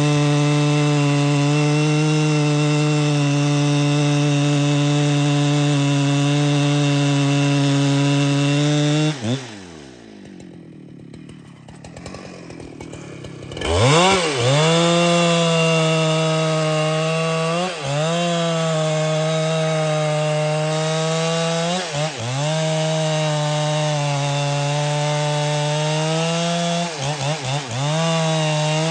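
Husqvarna 395XP two-stroke chainsaw running at full throttle on wood. About nine seconds in the revs fall away and the saw stays low for a few seconds. Near fourteen seconds it revs sharply back up and runs on at high revs, with short dips about every four to five seconds, then the revs drop off at the end.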